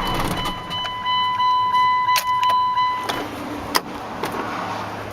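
A pickup truck's electronic warning tone sounds steadily for almost three seconds, with a few clicks in the cab and a sharp click near the four-second mark.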